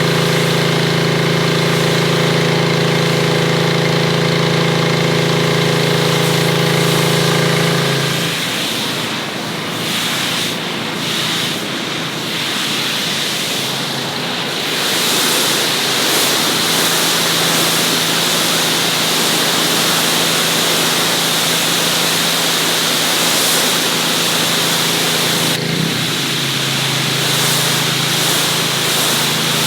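Gas pressure washer running: a steady engine hum for the first few seconds, then a loud hiss of the high-pressure water spray takes over about a third of the way in. The engine hum fades back in under the spray past the middle.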